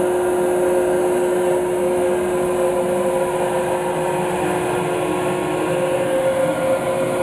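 Koblenz 9-amp vacuum cleaner running steadily, a constant hum over rushing air, as it draws air through corrugated conduit to suck a guide thread along it.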